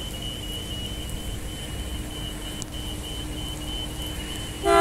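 Transperth B-series electric train approaching: a low, even rumble with a faint steady hum. Its horn starts loudly right at the end.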